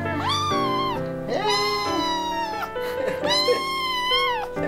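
A cat meowing three times in long, drawn-out meows over background music.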